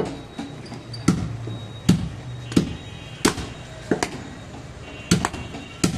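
Butcher's cleaver chopping into a goat carcass on a wooden stump chopping block: about eight sharp chops, roughly one every three-quarters of a second, two of them in quick succession a little after five seconds in.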